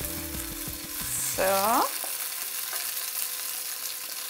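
Grasshoppers sizzling as they fry in hot oil in a frying pan, stirred with a wooden spoon: a steady frying hiss.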